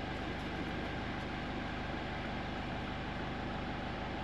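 Jeep Wrangler engine idling steadily, a low even hum with no change in pitch.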